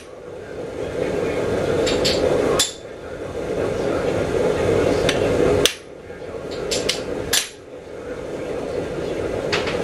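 Hammer striking a handled chisel driven into a red-hot square steel bar on an anvil, splitting it to separate a forged hummingbird's wings. Sharp metallic strikes come in small clusters at irregular intervals, over a steady background rush.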